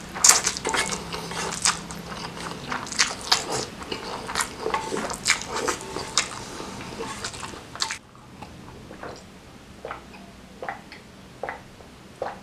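Close-miked eating of spicy stir-fried noodles: wet slurping, chewing and lip smacks in a quick run of sharp, moist clicks. About two-thirds of the way through, the background suddenly drops away and the mouth sounds turn quieter and sparser.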